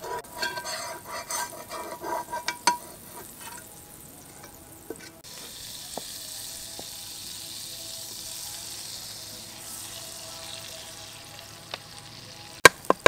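Food sizzling in a hot pan: a steady hiss sets in about five seconds in, after a few clinks of a utensil, and several sharp knocks come near the end.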